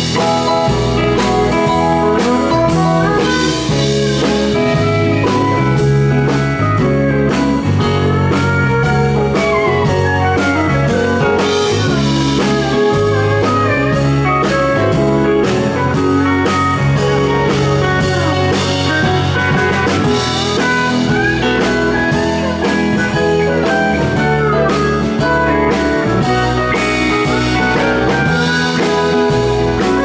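Live band playing an instrumental passage with no singing: electric guitar and pedal steel guitar play sliding, bending lines over keyboards and a drum kit.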